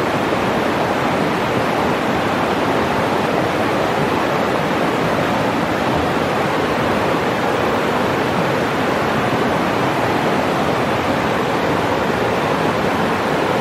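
Shallow mountain river rushing steadily over a rocky, boulder-strewn bed, a constant whitewater rush.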